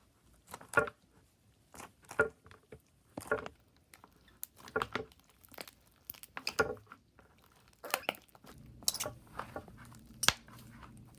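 Slime being kneaded by hand with Daiso clay worked into it: sticky squishing and crackling pops in short bursts, about one every second or so.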